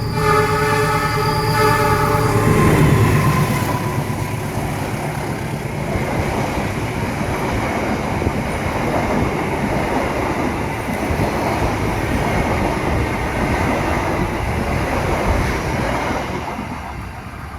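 A train horn held as one long chord, cutting off about two and a half seconds in. Then the Argo Parahyangan passenger train runs past with a loud, steady rush of wheels on rails, which fades near the end.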